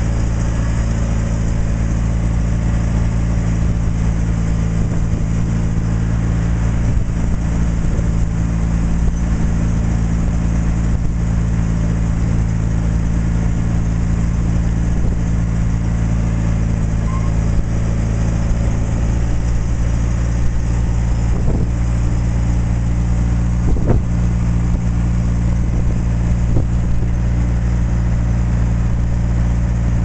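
Motorboat engine running steadily at an even speed, a low hum of several unchanging pitches over a constant hiss.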